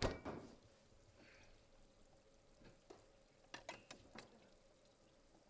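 A refrigerator door thumps shut, followed about three and a half seconds later by a quick cluster of light clicks and clinks.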